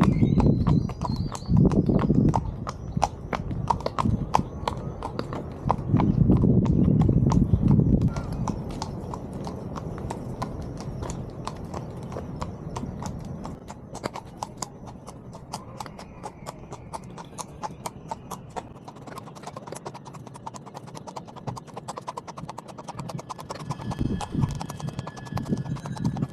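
A horse walking, its hooves clip-clopping in a steady, even run of strikes, with bouts of low rumble in the first eight seconds.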